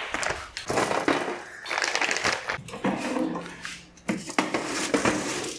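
Crinkling and rustling of a plastic frozen-food bag being folded up, then a foil-lined metal baking tray clattering as it is slid into a countertop toaster oven, with a few sharp clicks near the end.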